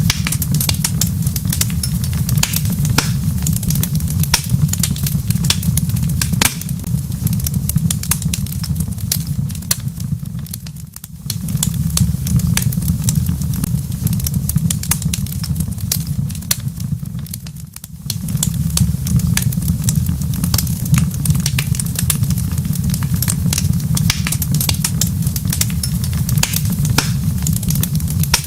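Wood fire crackling in a fireplace: frequent sharp pops and snaps over a steady low rumble, which fades out briefly twice near the middle.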